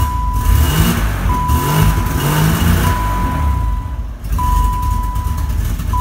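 BMW E30 325iX straight-six, a freshly swapped-in replacement engine, running on one of its first starts, with the revs rising and falling in the first half. A steady electronic beep sounds over it, breaking off briefly about every second and a half.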